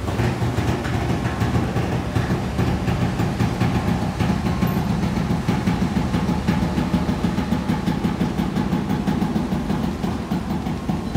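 Car ferry's engines and propellers running at the dock: a steady low rumble with a fast pulsing throb, the propellers churning the water at the slip.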